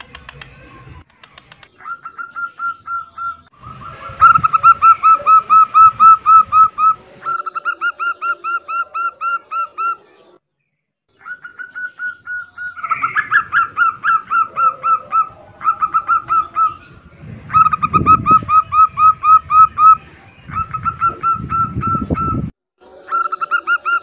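Female zebra doves (perkutut) calling in breeding condition, the call that draws males: runs of short, quickly repeated cooing notes, about five a second, each run lasting one to three seconds with brief pauses between. A low rumble sits under two of the runs near the end.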